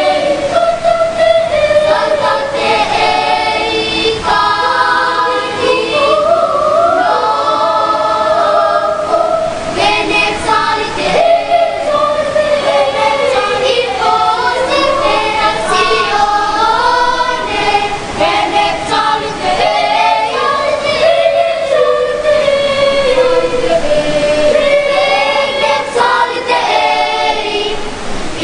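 Children's choir singing a sacred choral piece, several voices moving together without pause.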